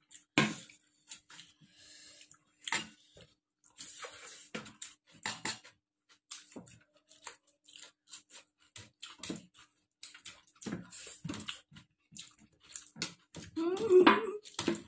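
Eating from a plate: scattered sharp clicks and taps of tableware, with a short louder vocal sound near the end.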